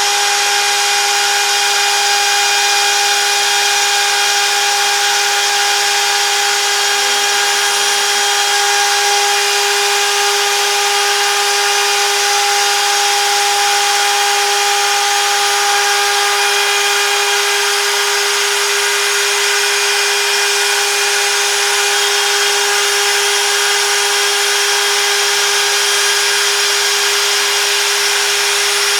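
CNC router spindle running steadily while cutting, a constant whine over a wide hiss of cutting noise.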